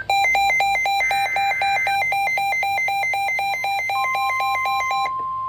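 Weather radio receiver sounding a special marine warning alert: a rapid electronic alarm beeping about five times a second, with a short burst of data tones (the SAME header) about a second in. About four seconds in, the steady NOAA Weather Radio warning alarm tone starts and keeps going after the beeping stops near the end.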